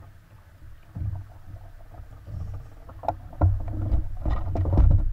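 Kayak on the water: splashing and knocks that start about three seconds in and grow louder, over a low wind rumble on the microphone.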